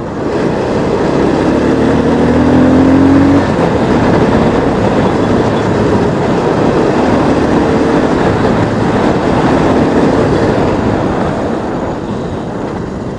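Bajaj Pulsar 220F's single-cylinder engine running under way, its note rising once for about two seconds as it pulls, heavily masked by wind rushing over the microphone. The sound gets quieter near the end.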